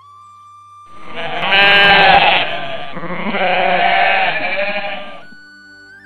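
Sheep bleating: two long, wavering bleats, the first starting about a second in and the second running until near the end.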